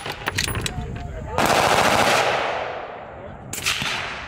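Gunfire: a few sharp cracks, then a loud sustained burst of fire about a second and a half in that trails away, and another shot near the end.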